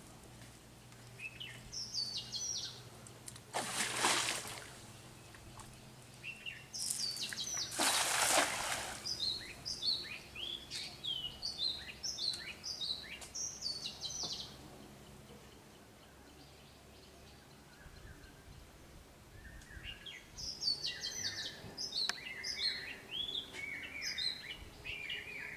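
A cast net is thrown and hits the pond water: two short splashing rushes of noise about four and eight seconds in, the second the louder. Small birds chirp and sing repeatedly throughout.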